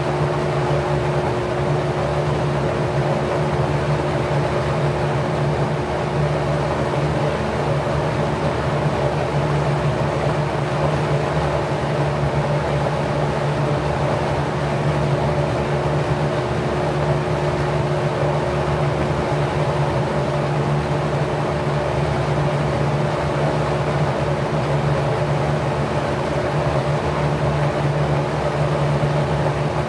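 Packard 99319 single-speed 1/5 hp electric motor spinning a LAU 20-inch four-blade, 27° pitch propeller at about 1050 rpm, running steadily. It makes a constant motor hum with an even rush of moving air from the blades.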